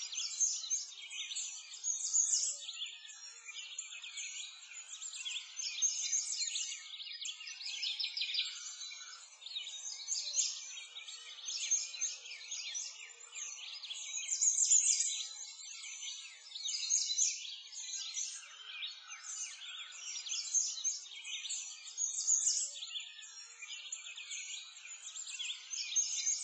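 A dense chorus of songbirds chirping and singing, with many short calls overlapping throughout.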